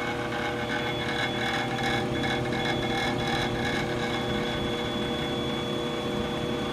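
Ammco 4000E electronic brake lathe running steadily: its spindle motor whirs with a constant whine while the automatic feed is engaged.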